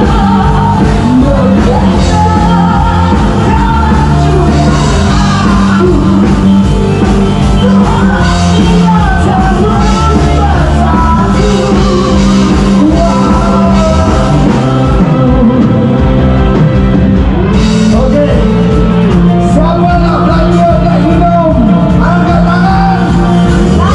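Live rock band playing loudly, with a lead vocalist singing over it.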